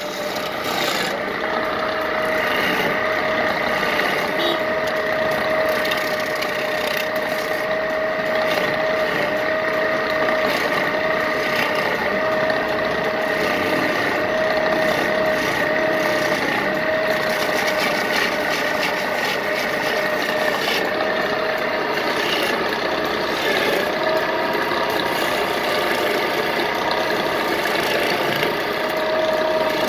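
A custom-built wood lathe running steadily with a continuous whine while a hand-held chisel scrapes and cuts into a spinning wooden bed leg.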